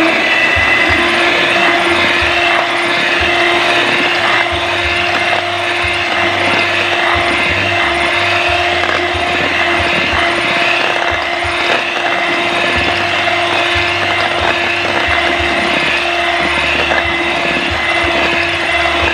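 Electric hand mixer running at a steady speed, its beaters churning cream and crushed Oreo biscuits in a stainless steel bowl, with a steady hum.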